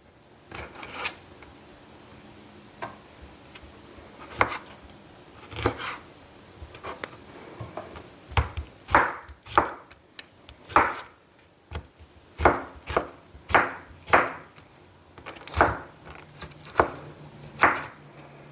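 Kitchen knife cutting a tomato on a wooden cutting board, each cut ending in a knock of the blade on the board. The cuts are spaced out at first, then come more steadily, about one or two a second, in the second half.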